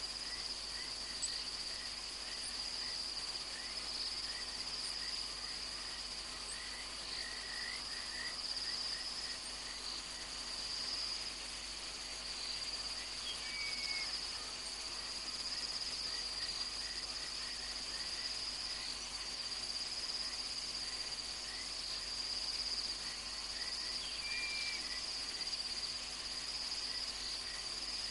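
Night insect chorus, crickets trilling in one steady high ring, with scattered short faint chirps.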